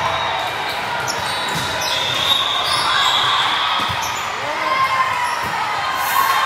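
Volleyball play in a large echoing sports hall: balls struck and bouncing on the court, sneakers squeaking, over a steady murmur of voices.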